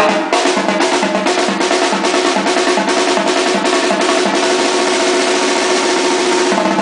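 Mexican brass band (banda) playing: drums keep a steady beat under one long held chord, which cuts off shortly before the end.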